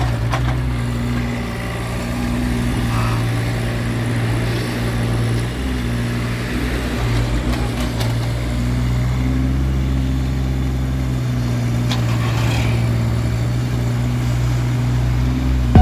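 Mini excavator's engine running steadily with a low, even hum.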